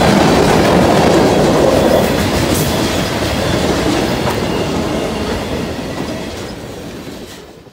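Freight cars of a BNSF manifest train rolling past close by: a steady rumble and clatter of steel wheels on the rails. It fades out over the last couple of seconds.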